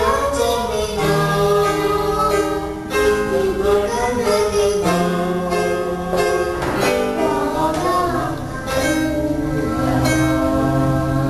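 A young girl singing a song solo through a microphone, over electronic keyboard accompaniment with steady held notes.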